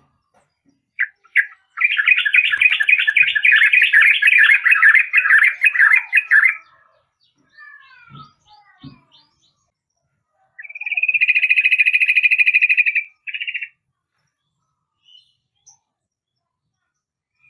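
Yellow-vented bulbul singing: a long, rapid chattering phrase of several seconds, a fainter run of falling notes, then a second shorter chattering phrase.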